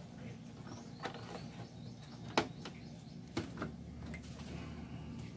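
A few sharp clicks and knocks, the loudest about midway, as an antenna cable is handled and plugged into a TV, over a low steady hum.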